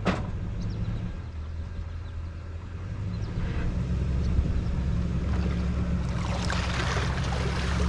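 An engine running steadily at low revs, with a sharp knock right at the start and churning, splashing water building up over the last couple of seconds.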